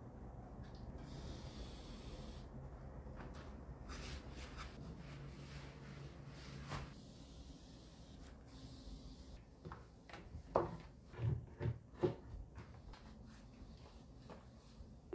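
Fine-mist spray bottle hissing out two long sprays over a kitchen countertop, with soft rubbing of a gloved hand and cloth wiping the surface. A few soft knocks follow a little past two-thirds of the way through.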